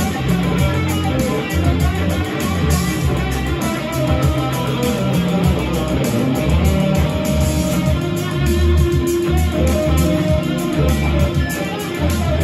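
Red Stratocaster-style electric guitar playing an improvised lead line over a backing track with a bass line and a steady beat.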